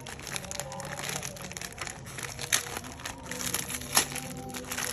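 Plastic courier mailer bag being torn open and crinkled by hand, with a sharp crackle about two and a half seconds in and a louder snap about four seconds in.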